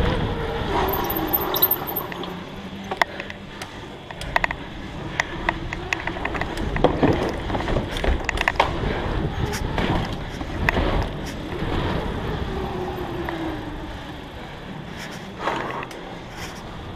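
Mountain bike being ridden hard on an indoor track: knobby tyres rumbling over the surface and the bike rattling, with frequent sharp clicks and knocks as it hits bumps and features.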